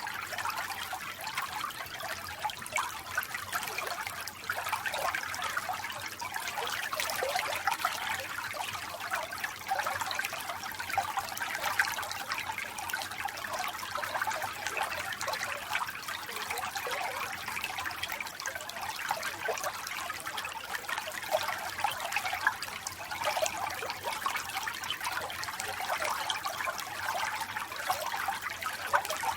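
Running water trickling and splashing steadily, with no pauses or changes.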